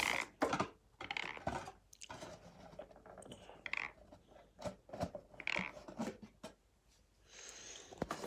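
Wrapped sweets and chocolate bars crinkling and rustling in their plastic wrappers as they are picked up and set down on a table, in short irregular spells with brief pauses.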